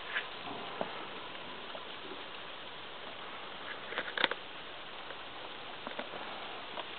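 Handling noise from a handheld camera: faint rustling and a few sharp clicks over a steady hiss, the loudest click about four seconds in.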